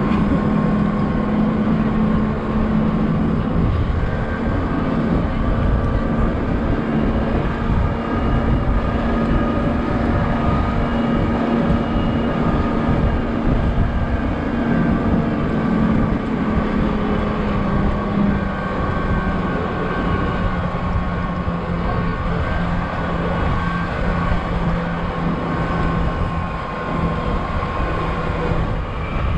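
Open-top double-decker bus engine running steadily as the bus drives along, heard from the open upper deck with a constant hum over a rushing, buffeting rumble of wind and road noise.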